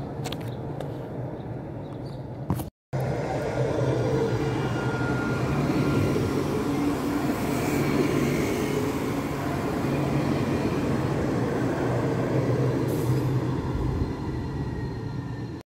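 Tram running: a steady rumble with a low hum and faint thin tones above it, broken by a brief dropout about three seconds in.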